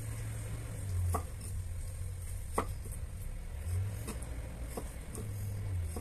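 Serrated kitchen knife cutting raw chicken breast on a wooden cutting board: soft slicing with a light tap of the blade on the wood every second or so, over a low steady hum.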